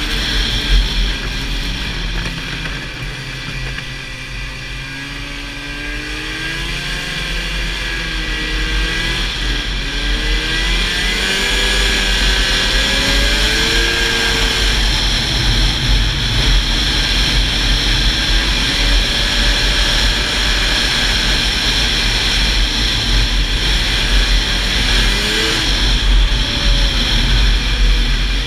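Old Ski-Doo snowmobile's engine running at speed, with wind rushing over the microphone. The engine pitch wavers up and down in the first half, and the sound grows louder from about six seconds in.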